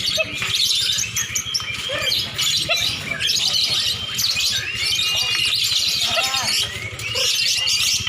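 Many caged songbirds, lovebirds and oriental magpie-robins (kacer), chirping and singing at once: a dense, unbroken chorus of overlapping high chirps and trills, with a few sliding whistles.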